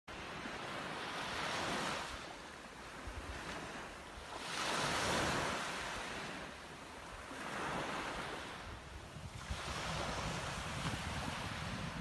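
Small waves breaking and washing up a sandy beach, the surf swelling and fading about every three seconds. Wind rumbles on the microphone underneath, more so near the end.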